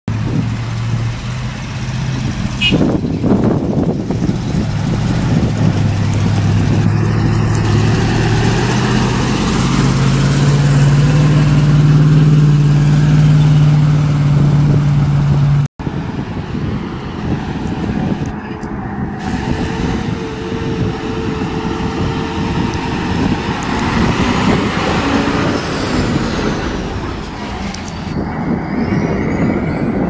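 Heavy fire-truck engines running as the trucks pull away, the engine note climbing steadily for several seconds. After an abrupt cut, the rumble of a fire truck and other traffic moving along a road.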